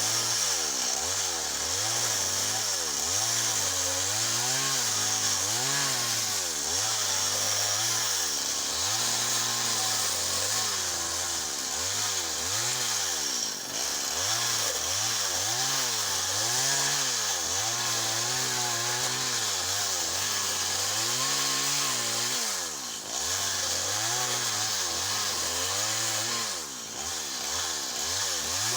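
Small chainsaw running hard while cutting into a softwood tree, its engine pitch rising and falling over and over as the chain bites and frees in the wood. The engine drops off briefly a few times, about halfway through and twice near the end.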